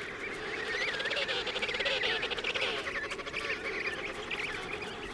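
Emperor penguin chicks calling in a huddle: many short, wavering whistles overlapping, with lower calls beneath, busiest in the first half.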